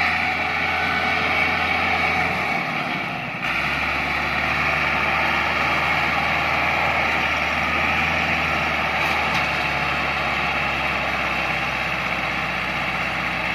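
A self-propelled forage harvester and a tractor pulling a trailer alongside it, both running steadily in the field. A constant high whine sits over the low engine noise, with a brief dip about three seconds in.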